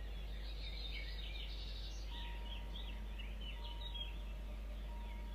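Birds chirping and twittering over a steady low hum, with a faint short tone repeating about every second and a half.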